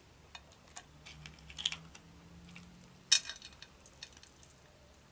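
Crawfish shells being cracked and peeled by hand: scattered small clicks and crackles, with one louder, sharp crack about three seconds in.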